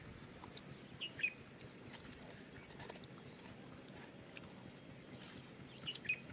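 Quiet outdoor background with a few short bird chirps, a pair about a second in and another pair near the end.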